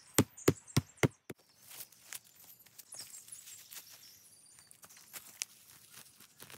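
Five sharp knocks in quick succession in the first second and a half, then quiet rustling and soft tearing as gloved hands pull clumps of moss up from the leaf litter.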